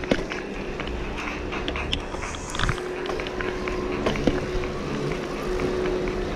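Riding noise of a Riverside hybrid bicycle on a street: tyre and road noise with frequent small rattling clicks and a steady tone that fades in and out.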